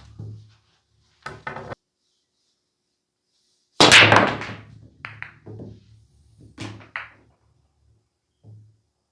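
9-ball break: a hard cue strike about four seconds in scatters the rack in a loud burst of ball clacks. A few more sharp clacks follow over the next three seconds as balls collide and rebound off the cushions.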